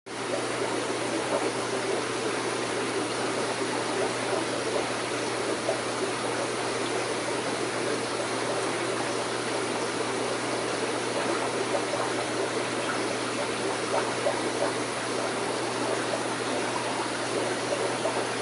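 Steady water running and trickling in an aquarium, the flow of its filtration, with small crackling pops over a constant low hum.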